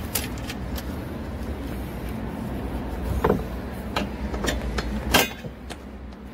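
Pliers gripping and turning a nut on a galvanized steel bracket bolted to a plastic wheeled bin, giving scattered metal clicks and taps, the sharpest about five seconds in. A steady low rumble runs underneath.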